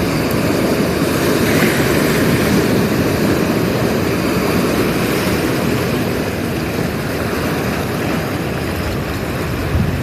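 Ocean waves breaking on a beach in a steady rushing wash that swells a little in the first couple of seconds and eases slightly after the middle.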